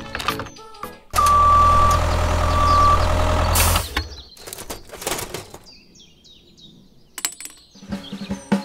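Engine-like tractor sound that comes in loud about a second in, runs for about two and a half seconds with a high steady tone sounding twice over it, then cuts off. Birds chirp softly after it, and music starts near the end.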